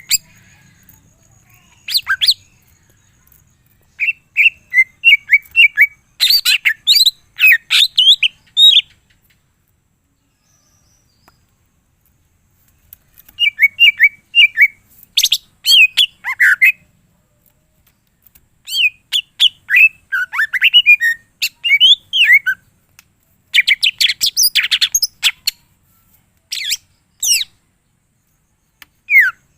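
Cucak ijo (green leafbird) song. Bursts of rapid, varied chirps, trills and sharp clicking notes, which form the mixed repertoire of mimicked calls that keepers call 'full isian'. The phrases come in spurts of one to several seconds, with a long pause about a third of the way in and shorter gaps later.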